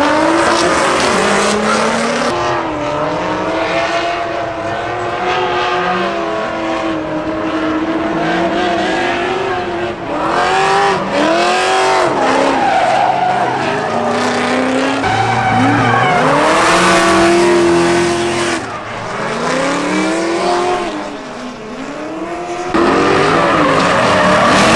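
Drift cars with engines revving up and down over and over and tyres squealing as they skid. The sound changes abruptly once near the start and again near the end.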